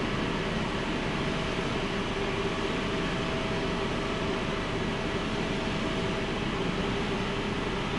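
Steady jet aircraft noise, a continuous rush with a constant whine, from a Boeing 777 during pushback. A fainter higher tone stops about six seconds in.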